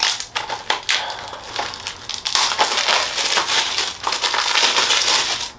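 Plastic shrink wrap crinkling and crackling as it is torn and peeled off a 4K Blu-ray case, heaviest in the second half.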